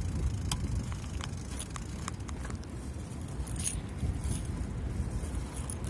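Mountain bike rolling on pavement: a steady low rumble with scattered light clicks and rattles from the bike.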